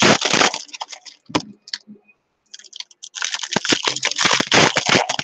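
Foil wrapper of a Topps baseball card pack crinkling as it is torn open by hand. A burst of crackling at the start, a short lull, then a longer stretch of crinkling from about three seconds in.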